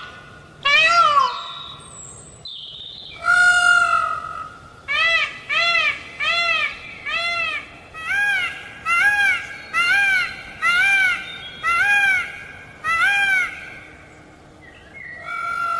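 Indian peafowl (peacock) calling: a single loud call about a second in and a longer one a little later, then a run of about a dozen short honking calls in quick succession, each rising and falling in pitch.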